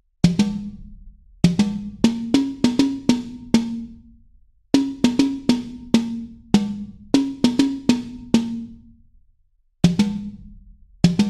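Background music: a percussion track of sharp, ringing drum hits in quick rhythmic runs, broken twice by short pauses.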